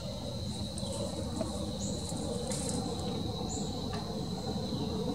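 Insects trilling as one steady, high, unbroken tone, with short higher chirps recurring every second or two over a low background rumble.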